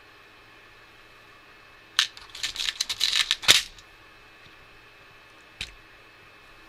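Small hard plastic and metal drone parts clicking and rattling as they are handled and fitted together by hand. A quick cluster of clicks starts about two seconds in and lasts under two seconds, and one more click comes near the end.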